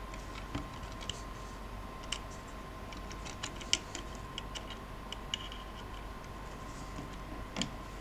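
Small plastic clicks and taps from the parts of a Transformers Turbo Tracks action figure being handled and pressed together, scattered irregularly, the sharpest a little before halfway. A faint steady tone runs underneath.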